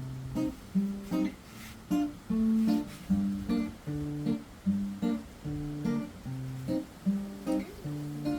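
Acoustic guitar strumming a steady rhythm through changing chords, the instrumental opening of a song.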